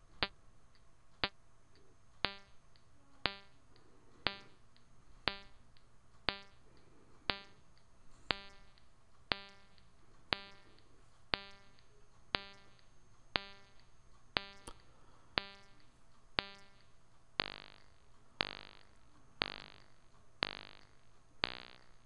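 Repeated impulse response of a digital all-pass filter, a Schroeder reverberator stage, played back as one click about every second. The first clicks are dry ticks. From about two seconds in, each click trails a short buzzing ring with a pitch of its own, which the short loop time of a few milliseconds produces. Near the end the rings last longer and sound stronger.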